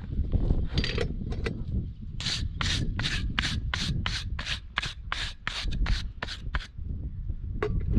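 Farrier's hoof rasp filing down a horse's overgrown hoof: a few scattered scrapes, then from about two seconds in a steady run of rough rasping strokes, about three a second, that stops a little before the end.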